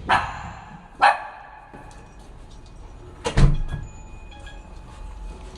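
Poodle-mix dog barking three times: two sharp barks about a second apart, then a louder one a couple of seconds later, at its owner returning home.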